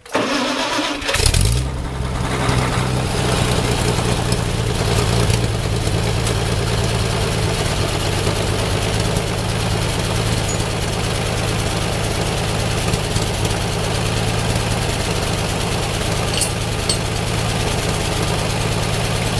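Ford 8N tractor's four-cylinder engine cranking for about a second, catching, then running steadily.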